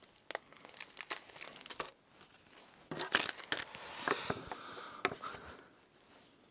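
A stack of stiff printed photo cards being handled and shuffled by hand: a run of short card clicks and taps, with a brief sliding rustle as one card is pushed across another about four seconds in.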